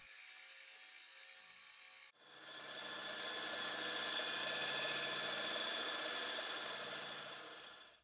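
Ryobi EBW-3523 benchtop bandsaw cutting 9 mm plywood: a steady sawing noise with a motor whine. It comes in abruptly about two seconds in after a faint hum, swells up, and fades out near the end.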